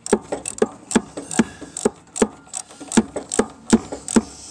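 Hand ratchet wrench clicking in steady strokes as a nut is run back down, about two to three loud clicks a second with fainter clicks between.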